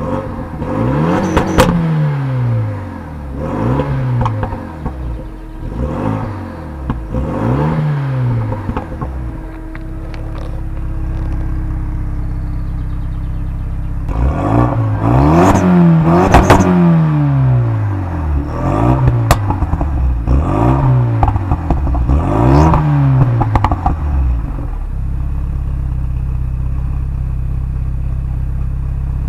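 Renault Mégane RS 275 Trophy's turbocharged four-cylinder through an Akrapovic exhaust set to RS mode, revved by a stationary car in short throttle blips: about four blips, then a few seconds of idle, then a second run of about five blips before it settles back to idle. Sharp cracks ring out on some of the blips.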